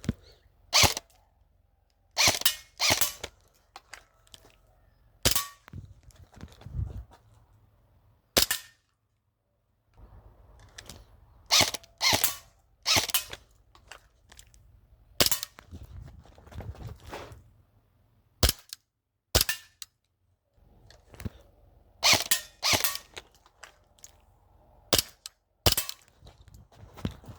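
Airsoft guns firing single shots at irregular intervals, some in quick pairs, as in a drill switching from the primary rifle to the secondary pistol.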